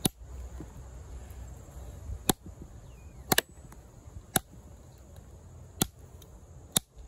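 LionSteel M7 fixed-blade knife chopping into wood: six sharp strikes, roughly one every second or so, with a quick double strike near the middle.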